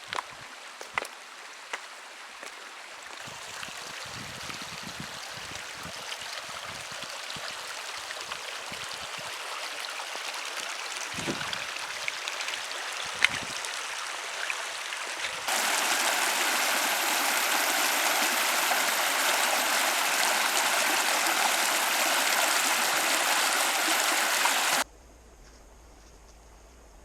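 Waipakihi River water rushing over stones, growing louder, then jumping abruptly to a louder, fuller rush about halfway through. Near the end it cuts suddenly to a faint low hum.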